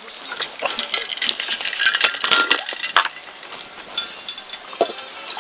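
Dishes and utensils clinking and rattling on the table, a quick run of small clicks and scrapes that thins out after about three seconds.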